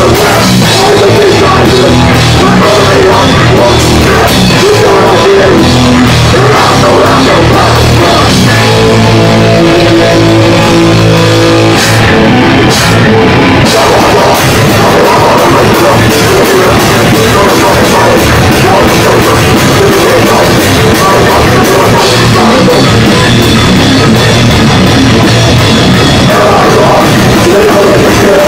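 Hardcore punk band playing live and very loud: distorted guitar and bass, a pounding drum kit and shouted vocals. Around the middle the band holds ringing chords for a few seconds, then the full band comes back in.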